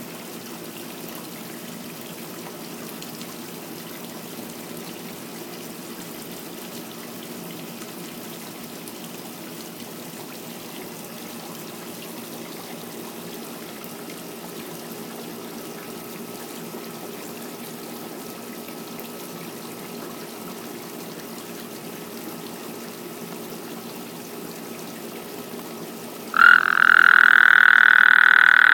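Steady trickling of water for most of the stretch. Then, near the end, a frog suddenly breaks in with a loud, sustained, high call.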